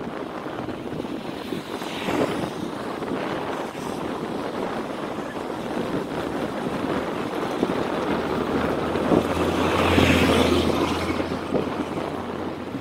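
Wind buffeting the microphone of a moving bicycle, with traffic noise; a motor vehicle's engine hum swells and passes, loudest about ten seconds in.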